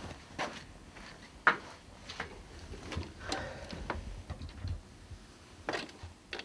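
Scattered knocks and clicks as a man walks to an office desk, sits in a swivel chair and pulls it in, then handles the computer keyboard and mouse; the sharpest knock comes about a second and a half in.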